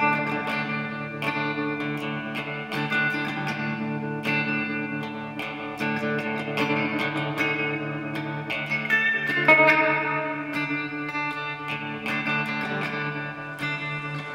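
Background music: guitar playing plucked, sustained notes through effects.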